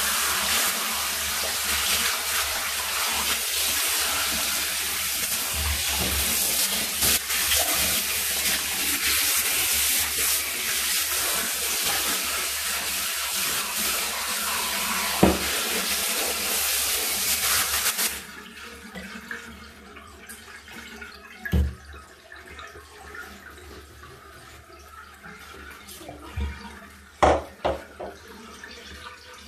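Handheld shower head with a brush attachment spraying water onto a cat's fur, a steady rush that shuts off suddenly about two-thirds of the way through. After it, a few short knocks, the loudest near the end.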